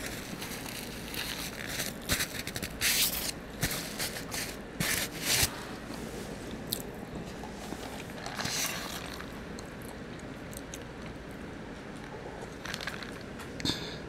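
Paper napkin crinkling and rustling in a run of sharp bursts over the first five seconds or so as hands are wiped, over soft close-up chewing. Later come a few quieter rustles and handling of a plastic cup as it is lifted to drink.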